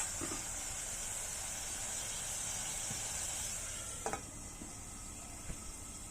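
Tofu frying in hot oil under a lid: a steady high sizzle. There are two sharp clicks, one right at the start and one about four seconds in, after which the sizzle gets a little quieter.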